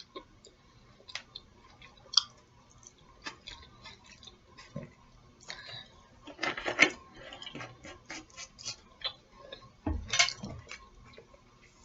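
Someone eating a lettuce salad: scattered short clicks and crunches of chewing, with light clinks of cutlery on a plate and a couple of denser bursts about six and ten seconds in.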